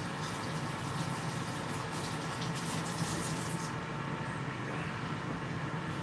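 GoWISE 5.8-quart air fryer running with a steady fan hum while it cooks. A crackling hiss sits over the hum and stops abruptly about two-thirds of the way through.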